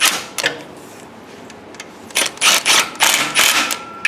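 Socket ratchet clicking in quick runs while bolts are tightened down: a short run at the start, then a longer run from about two seconds in.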